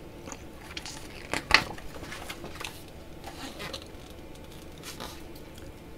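Paper rustling and crinkling as a page of a large hardcover picture book is turned by hand, with the sharpest flap of the page about a second and a half in.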